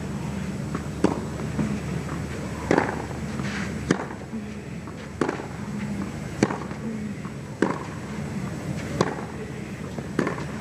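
Tennis ball struck back and forth in a baseline rally, about eight sharp racquet hits alternating between the two players, one roughly every second and a quarter.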